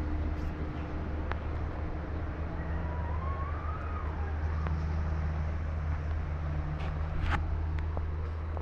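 Steady low hum of a running motor, with a few faint sharp clicks, the clearest about seven seconds in.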